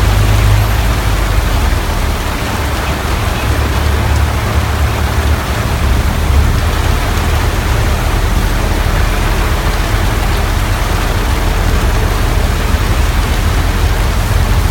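Heavy rain falling steadily, over the low, steady rumble of a songthaew's engine and road noise.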